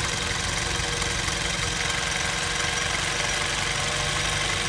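CITY-Sewing CT-20U53 industrial zigzag sewing machine, driven by its servo motor, running steadily as it sews a short, tight zigzag stitch.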